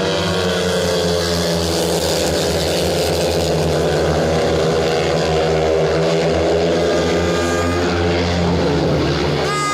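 Four speedway motorcycles racing, their 500 cc single-cylinder methanol engines running flat out together in a steady, dense drone.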